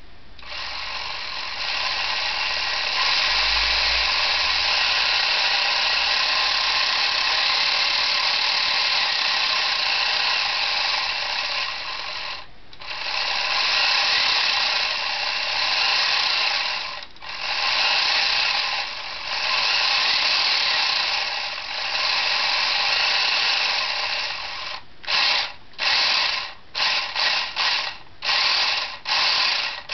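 Lego Technic drive and gear train running, spinning a centrifugal-governor tachometer. It runs steadily for most of the time with a few brief drops, then in the last five seconds it is started and stopped again and again in short bursts.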